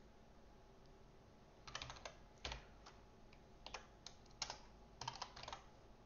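Faint computer keyboard typing in short bursts of keystrokes with pauses between, beginning nearly two seconds in.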